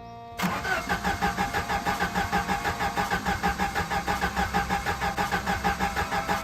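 Jeep engine cranking on its starter without catching: an even run of pulses, about six a second, that starts suddenly and cuts off abruptly. The engine will not start.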